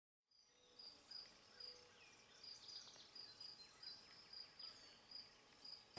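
Faint outdoor ambience with an insect chirping at one high pitch, about two even chirps a second, starting just after the opening half second of silence.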